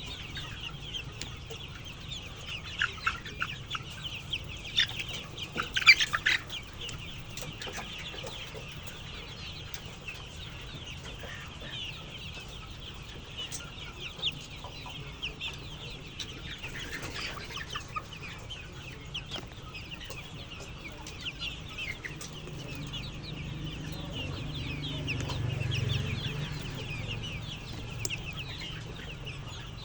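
A flock of chickens clucking and calling continuously, many short overlapping calls at once, with a few louder sharp squawks about five to six seconds in. A low rumble swells and fades about three quarters of the way through.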